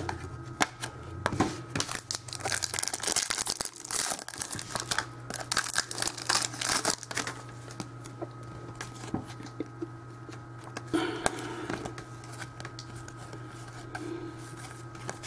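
Crinkling and tearing of a foil trading-card pack wrapper and cards being handled, in bursts of sharp crackles, over a steady low hum.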